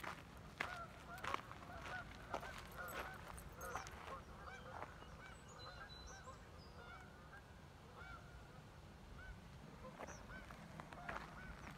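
A flock of birds calling, many short repeated calls overlapping, thinning out in the second half, with a few footsteps.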